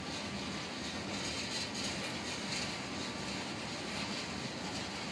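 Freight train of tank cars rolling past: a steady, even noise of steel wheels running on the rails.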